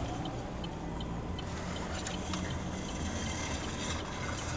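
Car engine idling, heard from inside the cabin of the stationary car as a low, steady hum, with faint ticks at an even pace about two to three a second.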